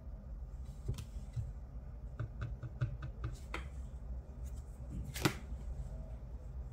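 Fortune-telling cards being handled and laid down on a spread: a tap about a second in, a quick run of light clicks a couple of seconds in, and a louder card snap about five seconds in.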